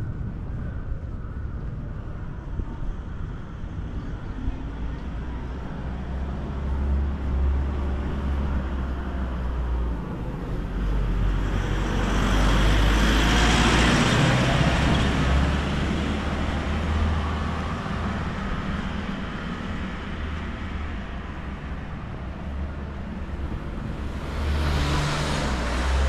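Street traffic: a steady low rumble, with a vehicle passing close that rises and fades about halfway through, and another passing near the end.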